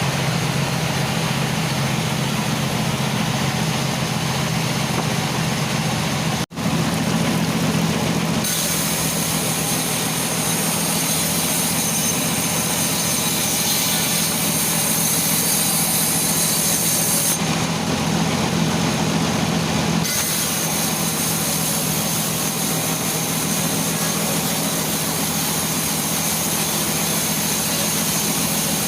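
Sawmill saw running steadily, with a high hiss of the blade cutting through a teak log that starts about eight seconds in, pauses briefly in the middle, then resumes. The sound drops out for an instant a little after six seconds in.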